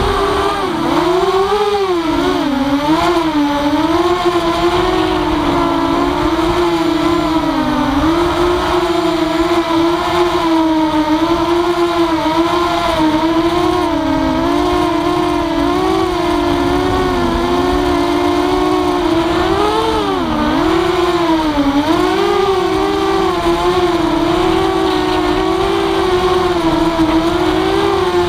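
Walkera F210 racing quadcopter's motors and propellers whining in flight. The pitch keeps dipping and rising as the throttle changes, and at times it splits into two close tones.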